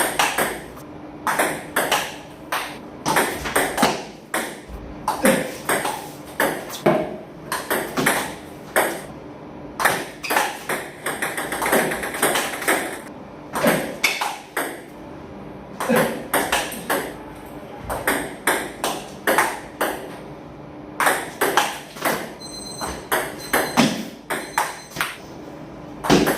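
Table tennis balls clicking off rackets and bouncing on the table in quick, irregular succession during practice drills, several hits a second.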